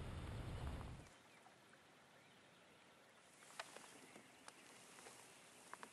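Low rumbling noise that stops suddenly about a second in, followed by near-quiet open-water ambience with a light hiss and a few faint, sharp clicks.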